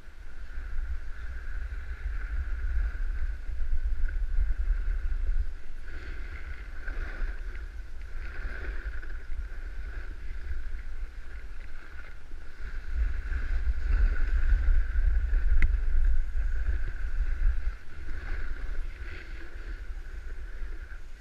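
Wind rumbling on a body-worn camera's microphone while snowboarding downhill, swelling about two to six seconds in and again about thirteen to eighteen seconds in, over a steady hiss.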